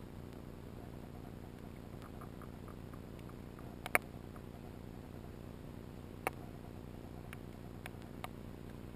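Underwater ambience over an oyster reef: a steady low noise with a few scattered sharp clicks, the loudest about four seconds in and another a little after six seconds.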